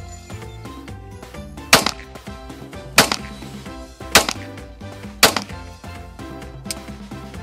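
Four pistol shots fired about a second apart.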